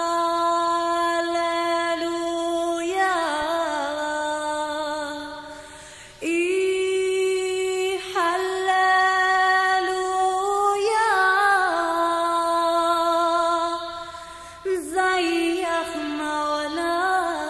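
A woman singing alone, with no instruments heard, in long held notes with ornamented, wavering turns between them. The voice breaks off briefly about six seconds in and again near fourteen and a half seconds.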